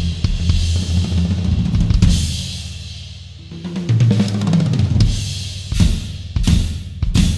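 Yamaha Stage Custom Birch drum kit, fitted out with Stage Custom Hip pieces, being played: bass drum, snare, toms and cymbals. There is a cymbal crash about two seconds in, then a string of heavy accented hits roughly once a second near the end.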